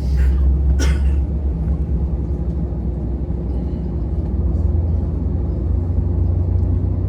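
Steady low rumble and hum of an airliner heard from inside the cabin as its jet engines are being started, with one short click about a second in.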